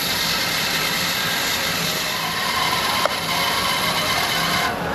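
Bandsaw cutting through a thick iroko board: a steady sawing hiss, with one short click about three seconds in.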